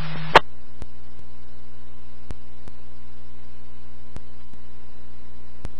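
Police radio scanner feed between transmissions. A sharp click as the previous transmission ends and the radio's low steady tone cuts off, then steady low hum and hiss with a few faint ticks.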